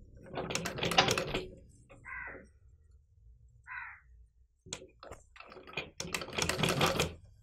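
Domestic sewing machine stitching in two short bursts of rapid needle clicking, each about a second long, one near the start and one near the end. A few slow separate stitches come just before the second burst.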